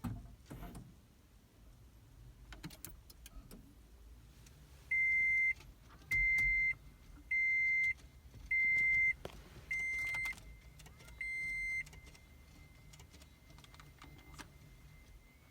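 Warning buzzer of a 2010 Toyota Prius beeping six times, short high beeps about a second apart, then holding a faint steady tone. Light clicks come earlier. The car is not starting and its dash lights are out.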